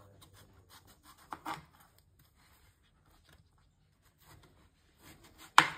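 Kitchen knife cutting through a large, ripe cucumber on a wooden cutting board: soft scraping cuts, a louder knock of the blade on the board about a second and a half in, and a sharp, loudest knock near the end.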